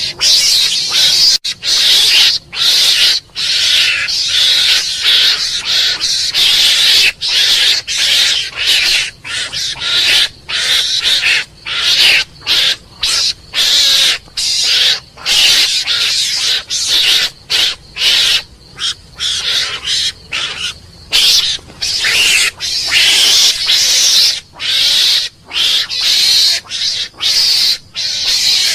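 Mongoose calling: a fast, unbroken run of shrill, harsh calls, two or three a second, with brief gaps between them.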